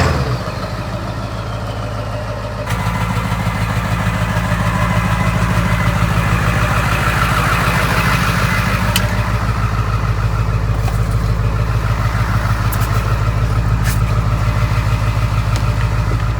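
Ford 7.3 Powerstroke V8 turbo-diesel idling steadily with an even pulsing rhythm, running cold about a minute after a cold start. It gets louder about three seconds in and then holds steady.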